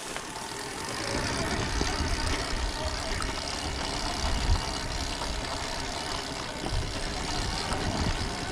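Stark Varg 80 hp electric dirt bike being ridden over bumpy grass, heard from the rider: steady wind buffeting on the microphone over the bike's running noise.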